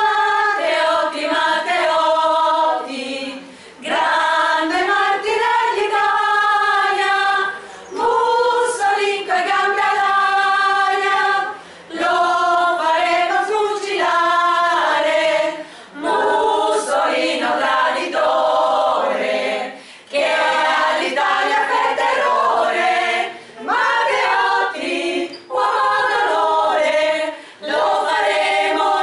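Small women's choir singing a cappella: short satirical anti-fascist verses in northern Italian dialect, set to songs of the fascist era. The phrases come in lines of a few seconds, with brief pauses for breath between them.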